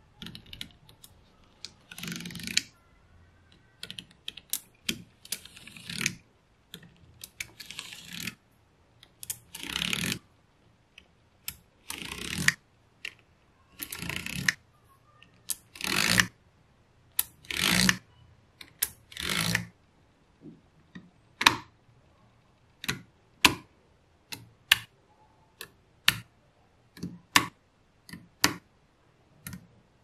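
Small neodymium magnetic balls clicking and snapping together as they are placed, in irregular sharp clicks, some in short rattling runs of about half a second.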